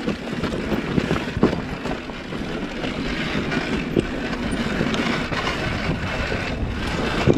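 Dirt bike ridden over a rocky, loose trail: a steady rumble with scattered sharp knocks as the wheels and suspension strike stones, and wind on the microphone.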